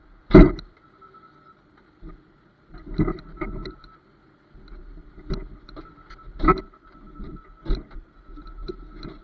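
Heavy scrap metal banging and clanking as a wheel loader's forks pick a stripped vehicle body off a trailer. It comes as a series of irregular bangs, the loudest about half a second in.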